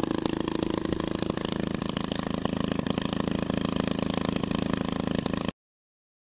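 Small homemade rewound 12 V DC motor spinning fast with a propeller on its shaft: a steady whir with a fast buzzing rattle. It cuts off suddenly about five and a half seconds in.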